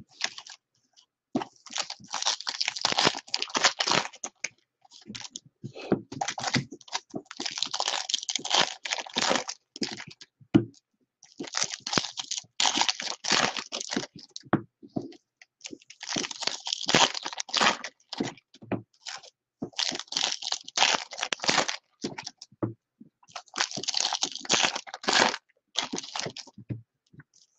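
Foil wrappers of 2018 Bowman baseball card packs crinkling and tearing as the packs are ripped open by hand. The crackling comes in bursts of a few seconds each, about six of them, with short pauses between.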